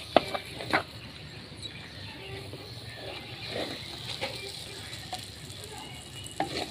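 A wooden spatula scrapes and knocks against a terracotta pot while thick, crumbly sooji halwa is stirred. There are sharp knocks just after the start and about a second in, softer scrapes through the middle, and another knock near the end as halwa is scooped into a small clay bowl.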